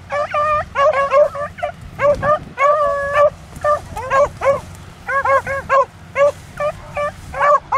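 A brace of beagles baying on a rabbit's track, giving repeated short calls that sometimes overlap, with one longer drawn-out bawl about three seconds in.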